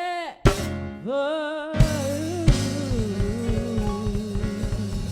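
Live gospel worship music: a singer holds long notes with vibrato over a band, with sharp drum hits about half a second and two seconds in, after which the drums settle into a steady, busier beat.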